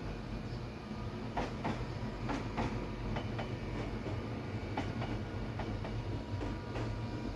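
Sewing machine running with a steady low hum, with irregular light clicks and clinks over it.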